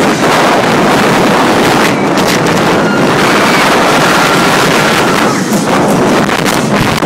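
Roller coaster ride at speed: loud, steady wind rushing over the microphone together with the train running along the track.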